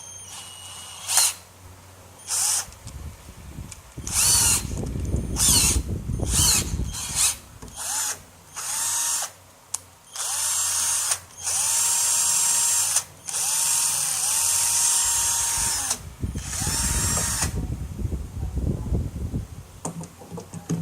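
12V cordless drill running in repeated trigger bursts, the motor whine ramping up and dropping off with each squeeze. The bursts are short at first, then longer runs of one to two seconds, with a lower rumbling under some of them.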